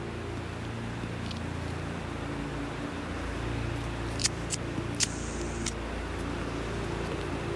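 A lighter clicking about four times between four and six seconds in, with a short hiss as the flame catches, over a steady low rumble.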